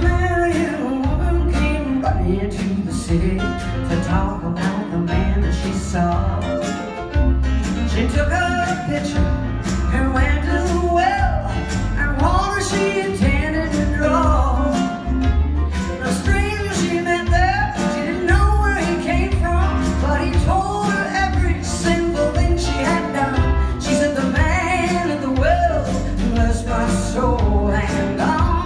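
Live band music with a steady bass and regular drum beat, with singing and melodic lines over it.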